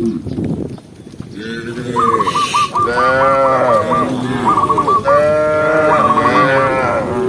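Cows mooing: several long, drawn-out calls, overlapping one another, starting about a second in.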